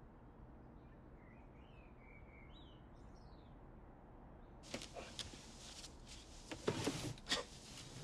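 Quiet outdoor air with a few faint bird chirps, then, about two-thirds of the way in, a sudden scuffle: rustling and several sharp thumps as a person falls and struggles.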